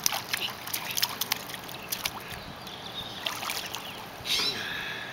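Swimming-pool water splashing and lapping around a baby held in it, with many small sharp splashes and spatters of droplets.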